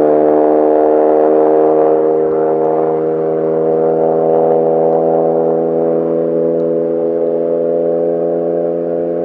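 Renault Clio 5 RS Cup race car's 1.3-litre turbo four-cylinder engine holding one steady note as the car drives away at constant speed, slowly fading.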